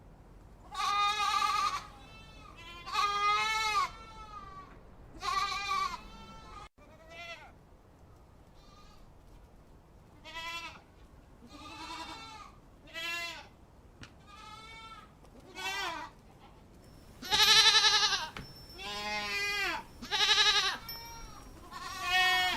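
Goats bleating: about a dozen quavering calls, one to two seconds apart, some loud and some fainter.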